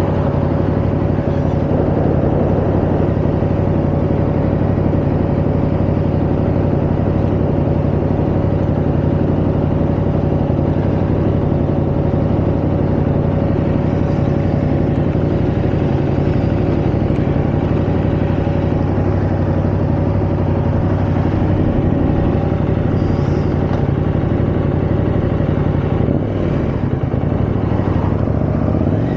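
KTM 890 Adventure R's parallel-twin engine idling steadily, revved briefly a couple of times near the end.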